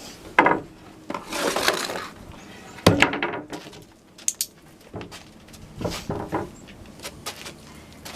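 Wooden bang board knocking and clattering against the small obstacle it rests on, a few separate bangs several seconds apart.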